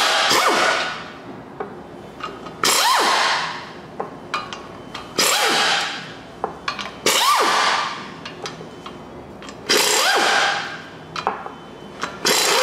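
Impact wrench backing out the 15 mm flex plate bolts one after another: about six bursts of hammering, each about a second long and opening with a rising whine, every two to three seconds, with small clicks between them.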